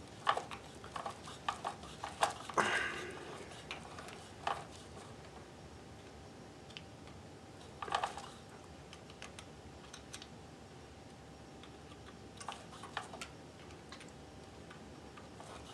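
Light clicks and taps of hands working a vintage Kenmore 158 sewing machine during oiling, clustered in the first few seconds and returning around eight and thirteen seconds in.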